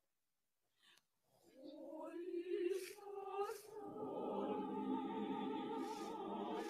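School choir singing: after about a second of near silence, a few voices enter and the full choir joins about four seconds in, holding long sustained chords.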